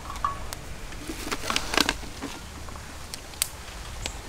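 Small twig fire between bricks, with scattered sharp crackles and clicks as sticks are fed and arranged in it; a quick cluster of snaps a little after one second in.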